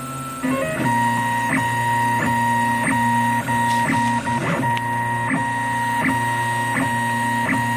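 Airwolf 3D printer's stepper motors whining in steady musical tones as the print head sweeps back and forth laying down 25% infill, with a short click at each change of direction about every three-quarters of a second. The pitch shifts in the first half-second as the moves change.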